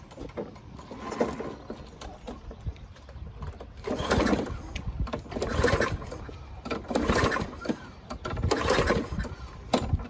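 Primed Tecumseh engine on a Lawn Boy push mower being pull-started over and over: about six recoil pulls, each a short burst of cranking roughly one and a half seconds apart, louder in the second half, without the engine settling into a steady run. The engine is a no-start.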